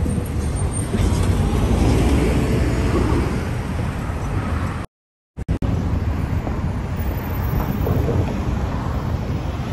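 Road traffic running close by, cars and a city bus passing, with a deep wind rumble on the microphone. The sound cuts out completely for about half a second midway.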